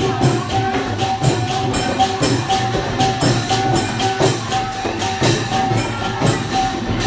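Lively Thai procession music with a fast, steady percussion beat and a repeating held note over it.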